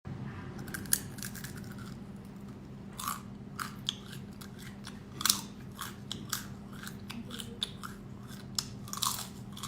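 Crisp fried insects bitten and chewed close to the microphone: irregular sharp crunches, a few to several a second.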